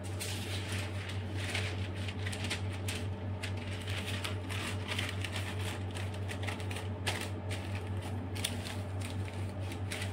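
Plastic piping bag crinkling and crackling irregularly as it is squeezed to pipe buttercream rosettes, over a steady low electrical hum.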